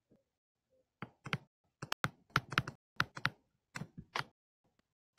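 Pen stylus tapping and clicking on a tablet screen while handwriting, a quick irregular run of short taps that starts about a second in and stops after about three seconds.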